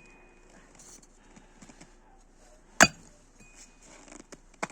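A single loud, sharp clink-like impact about three seconds in, with a faint ringing after it, and a smaller click near the end.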